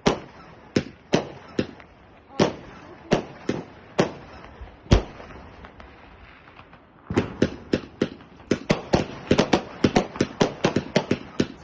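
Fireworks battery going off with sharp bangs, a 30 mm cake firing. Single bangs come every half second to a second at first. After a short lull of faint crackle, a fast volley of several bangs a second starts about seven seconds in.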